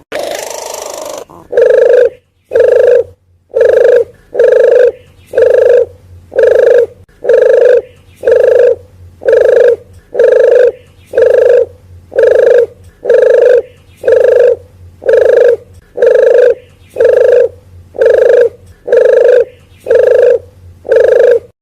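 Recorded lure call of a puter geni (wild dove): short, even coos repeated at a little over one a second. A longer, different call opens the series.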